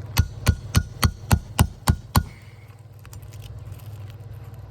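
Eight quick hammer strikes, about four a second, then stopping: a shingle hammer driving a nail puller to work a roofing nail out of an asphalt shingle.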